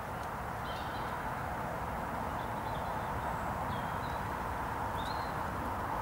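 Steady outdoor background noise from the lakeside, with faint high chirps of small birds a few times.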